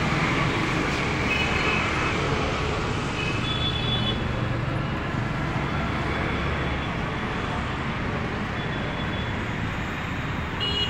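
Busy street traffic: scooters, motorbikes and cars passing on a city road, a steady wash of engine and tyre noise with a few short high tones now and then.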